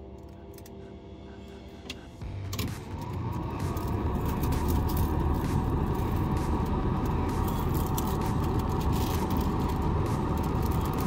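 Newly replaced heater blower motor of a 1979 Ford Bronco running, with air rushing out of the dash defroster vents. About two and a half seconds in it steps up to a higher speed: the whine rises slightly in pitch and the rush of air grows much louder, then it runs steady.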